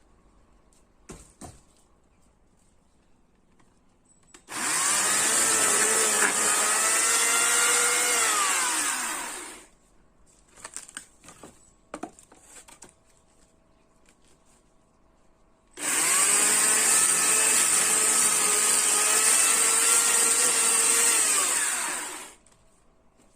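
Chainsaw cutting wood in two runs of about five and six seconds, each starting suddenly at full speed, sagging a little in pitch during the cut and winding down as it stops. A few light knocks fall in the quiet between the runs.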